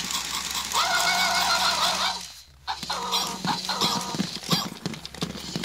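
Toy robot dogs (Tekno-type robotic puppies) giving out electronic yelping sound effects, two wavering bursts, over the clicking and whirring of their gear motors as they move.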